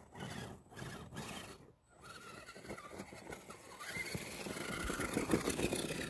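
Radio-controlled crawler truck driving through snow, its electric motor and gears whining, starting and stopping in short bursts for the first couple of seconds, then running longer and louder toward the end.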